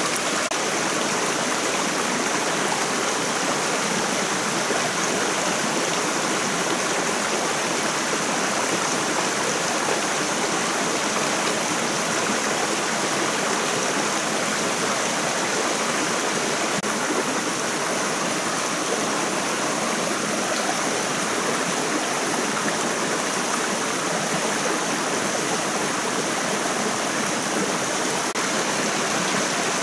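Small forest stream rushing over rocks in a low cascade: a steady, even rush of water.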